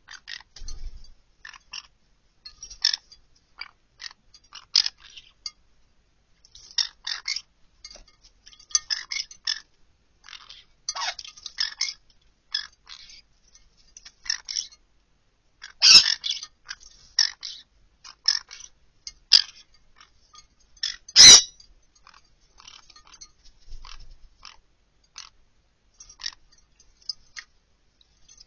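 Green-cheeked conures bathing in a glass dish of water: irregular bursts of small splashes, wing flutters and light clinks against the glass. Two much louder sharp knocks stand out, one a little past the middle and one about three quarters of the way through.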